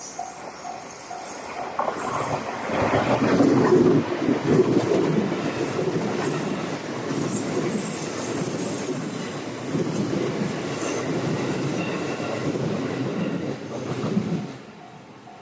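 Japanese level-crossing warning bell dinging about three times a second, drowned out from about two seconds in by a passing train's loud wheel-on-rail noise. The train noise runs for about twelve seconds, then drops away near the end and the bell is heard again.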